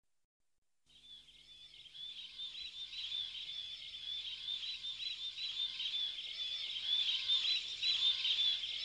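Dense chorus of many small birds chirping together, fading in over the first couple of seconds and growing steadily louder.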